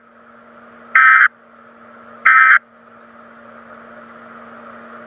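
Weatheradio Canada's Specific Area Message Encoding (SAME) digital data bursts: short harsh screeches repeated at even spacing, the end of one as it starts and two more about 1.3 s apart, over steady radio hiss and a low hum.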